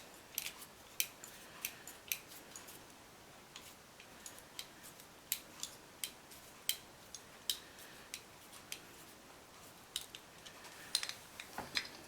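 Irregular light clicks and taps of small model-kit parts and tools being handled and fitted together, a couple of dozen sharp ticks scattered over the whole stretch.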